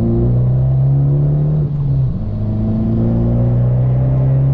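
2018 Abarth 595 Turismo's turbocharged 1.4-litre four-cylinder accelerating hard in second gear with the revs climbing. About two seconds in, a quick upshift drops the pitch, and the revs then climb again in the next gear.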